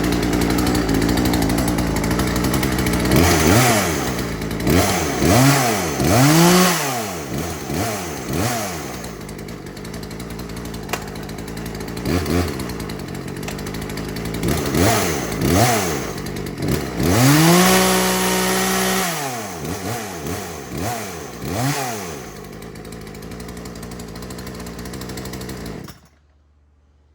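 Craftsman 36cc two-stroke chainsaw idling and being revved in a series of quick throttle blips, the pitch rising and falling each time, with one longer high rev held for about two seconds. It then settles back to idle and is shut off abruptly near the end.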